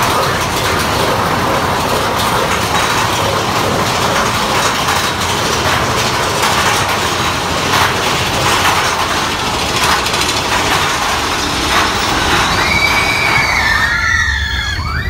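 Mine-train roller coaster cars rolling and rattling along the track, a steady loud rumble with a few faint knocks. Near the end, several high squeals glide up and down.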